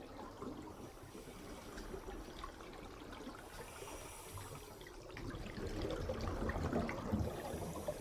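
Aquarium water trickling faintly over a low hum, a little louder from about five seconds in.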